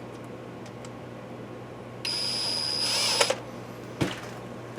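Small electric screwdriver running for about a second with a steady high whine, driving a screw into the UPS's plastic case; a single sharp knock near the end.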